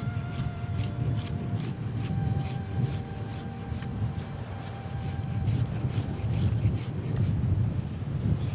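Repeated rasping strokes of a hand tool shaping a hardwood buloke (bull oak) axe handle, in a steady rhythm of a few strokes a second.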